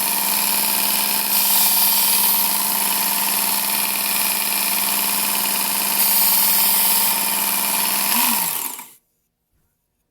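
Work Sharp Ken Onion edition belt sharpener with the blade grinding attachment running, a steady motor hum under the hiss of the abrasive belt, louder twice. Near the end the motor is switched off: its pitch falls and it stops about nine seconds in.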